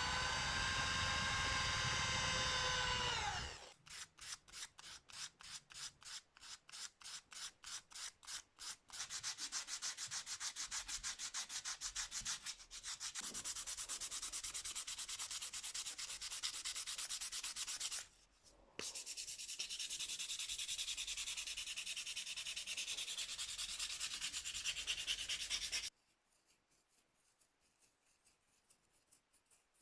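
A small power tool's motor whines steadily, then winds down and stops a few seconds in. Abrasive hand-sanding strokes follow, first slow separate rubs about three a second, then quicker continuous back-and-forth rubbing with one short pause, stopping suddenly near the end.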